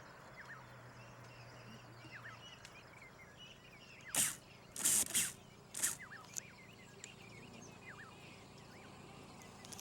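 Small birds chirping in the background with many short, rising calls. Four short, loud, hissing bursts of noise come about four to six seconds in.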